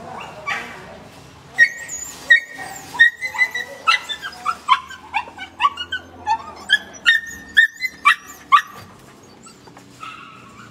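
Several caged dogs barking and yelping: a quick run of sharp barks and high yelps from about a second and a half in until shortly before the end, then quieter.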